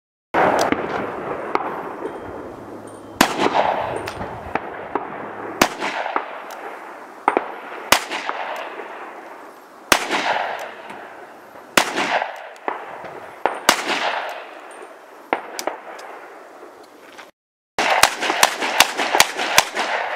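Handgun fired at an outdoor range: single shots about two seconds apart, each followed by a long fading echo, then a fast string of shots near the end.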